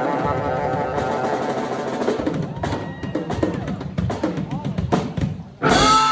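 Live funk band with horns and drum kit: a held chord gives way to a rapid drum fill on snare and bass drum, ending in one loud full-band hit just before the end.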